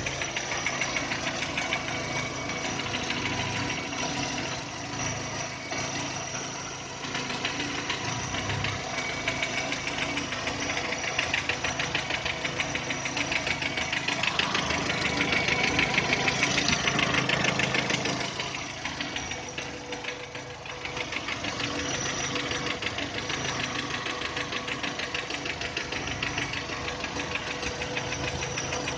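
VW Touran's 1.6-litre BSE petrol engine idling cold with a fast, even knocking from inside the engine, growing louder for a few seconds midway. The knock appears on a cold engine once idle drops below 1000 rpm and fades as it warms; the engine was rebuilt with new pistons, valves and hydraulic lifters.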